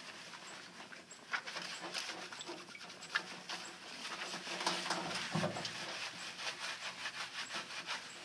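Hands scrubbing a lathered, wet standard poodle coat: a run of quick, irregular squelching and rubbing strokes in the soapy curly hair. A brief low sound comes about five seconds in.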